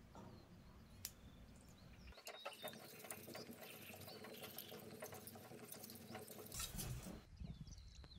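Faint small-bird chirps over soft, irregular ticks and scrapes of a cleaver blade worked on a wet whetstone.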